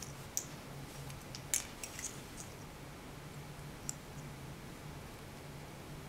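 A few light plastic clicks and rattles of RCA plugs and XT60 connectors being handled: one sharp click about half a second in, a cluster of clicks between one and a half and two and a half seconds, and one more near four seconds, over a faint low hum.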